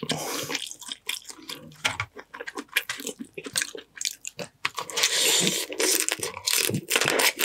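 Close-miked eating of boiled crab: wet squishing and crunching as the shell and meat are picked apart, then a longer sucking slurp with chewing about five seconds in.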